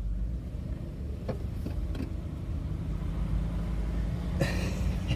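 Cadillac Allante's V8 running smoothly, heard from inside the cabin as the car drives slowly, with a few light clicks and a short, louder rattle about four and a half seconds in.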